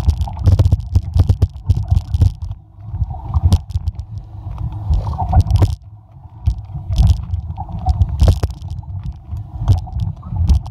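Mountain bike rolling downhill over a rough dirt and rock trail: a heavy, uneven low rumble with frequent clicks, knocks and rattles as the bike bounces over bumps.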